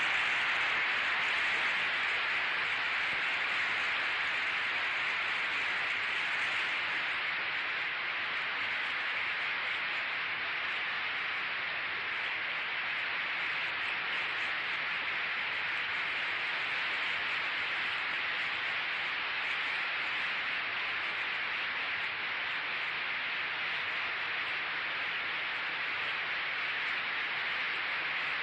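Delegates in the assembly hall applauding steadily after the speech, heard on an old film soundtrack as an even, hiss-like wash of clapping.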